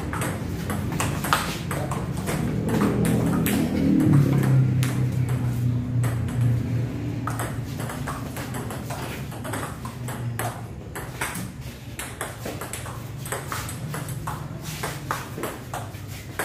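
Table tennis rally: the ball clicking back and forth off rubber paddles and the table in a fast, uneven series of sharp taps. A low drone in the background swells to its loudest about four seconds in and fades later.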